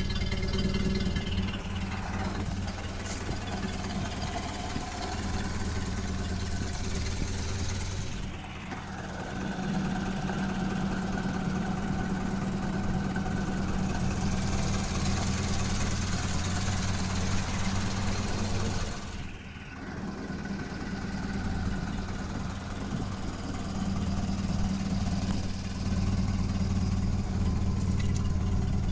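1930 Ford Model A's four-cylinder side-valve engine idling steadily, dipping briefly twice.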